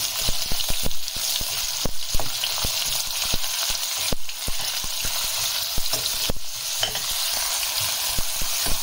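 Sliced onions sizzling steadily in hot oil in a kadhai over a low flame, while a steel spoon stirs them, clinking and scraping against the pan in frequent light knocks.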